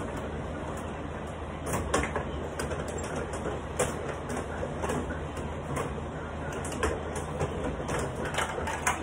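Carrom bubble hockey table in play: the control rods being pushed, pulled and spun, with irregular plastic clicks and knocks of the puck and players under the dome, over a steady low hum.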